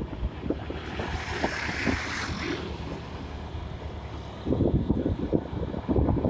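Wind buffeting the microphone over the running noise of a moving vehicle on a road. A passing vehicle's hiss swells about one to two seconds in, and the buffeting grows heavier from about four and a half seconds in.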